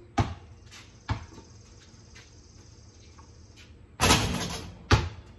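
Basketball bouncing on a concrete slab: two sharp thumps early on, about a second apart. About four seconds in there is a louder half-second burst of noise, followed by another thump near the end.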